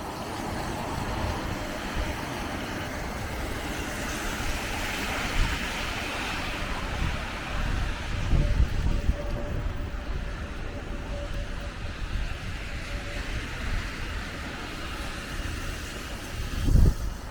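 Outdoor street noise: traffic going by, with wind gusting on the microphone in low rumbles, the strongest gust near the end.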